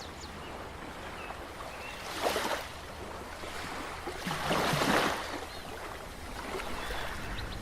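Rushing sea water and surf, a steady wash that swells loudly twice, first about two seconds in and again near the middle.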